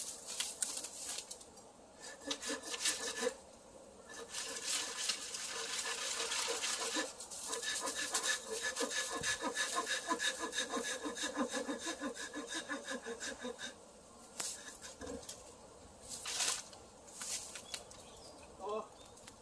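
Hand saw cutting through a thick bamboo stem with quick back-and-forth strokes, a rasping sound with a faint ringing tone. A short burst of sawing comes first, then a long steady run that stops about two-thirds of the way through.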